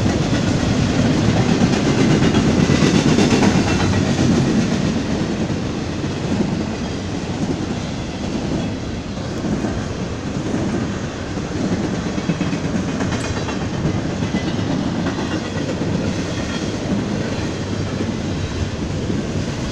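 Union Pacific freight train's double-stack container cars rolling past: a steady rumble and rattle of wheels on the rails, loudest in the first few seconds.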